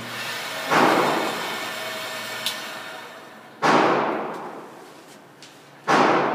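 Three handgun shots, about three seconds and then two seconds apart, each followed by a reverberant decay in the enclosed range.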